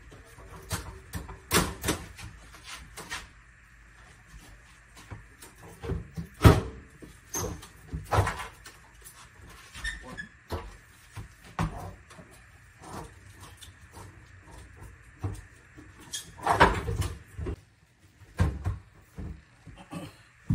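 Irregular knocks, clunks and clatters of hands, tools and parts against a kitchen sink and its wooden base cabinet during sink installation work, with louder knocks about six and a half and sixteen and a half seconds in.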